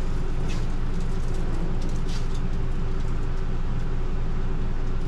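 A steady low mechanical hum, with a few faint clicks and rustles as a foil-lined baking tray is taken out of an oven, about half a second and two seconds in.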